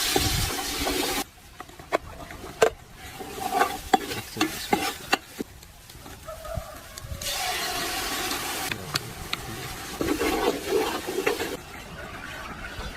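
Cooking at the pan: stretches of hissing, at the start and again about seven seconds in, with scattered clicks and knocks of utensils against cookware between them.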